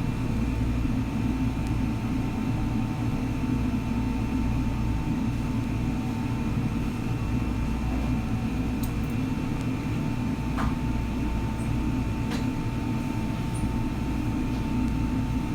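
A steady low hum with a faint constant higher tone, and two light clicks in the second half.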